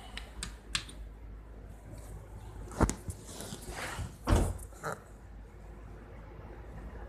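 Scattered short clicks and knocks over a low hum. The loudest are a sharp click just under three seconds in and a heavier thump a little after four seconds in.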